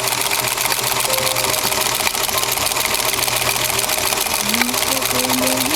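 Singer 222K sewing machine running steadily at speed, its needle mechanism making a fast, even stitching rhythm.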